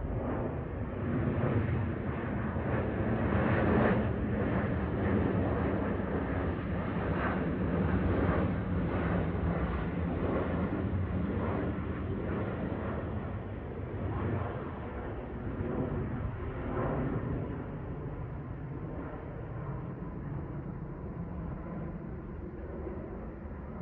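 Airbus A321-211 airliner on approach passing overhead, the steady rumble of its CFM56 turbofan engines. It is loudest about four seconds in and slowly fades as it moves away.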